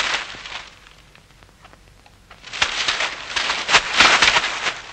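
Paper dummies on light frames being smashed apart by blows, with the crackle and tear of paper and the snap of the frames. There is one burst at the start, then after a quieter second a run of rapid crackling strikes.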